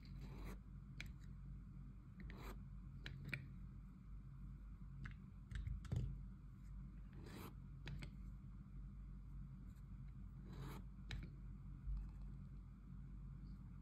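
Pump of a stainless steel foaming soap dispenser pressed by hand several times, each stroke giving a short, soft hiss of foam, with faint clicks in between.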